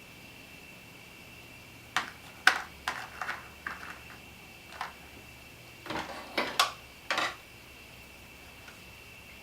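A run of sharp clicks and light clatters, about a dozen over five seconds, from small hand tools and wiring parts being picked up and handled, over a faint steady high whine.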